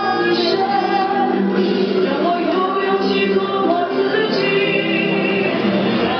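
A song with instrumental accompaniment and a group of young children singing along.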